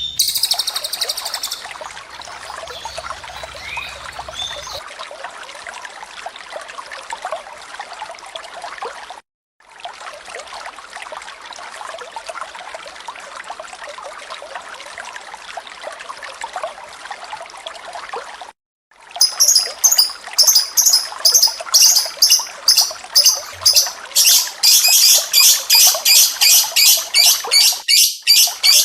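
Water trickling and running steadily, broken off twice for a moment. About ten seconds before the end, a bird's shrill high chirps start over it and repeat evenly about twice a second.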